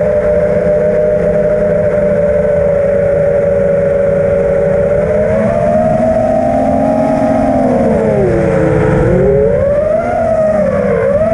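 FPV racing quadcopter's motors and propellers whining loudly as heard from the onboard camera, holding one pitch for about five seconds, then rising, dropping about eight seconds in, and wavering up and down near the end as the throttle changes through the dive.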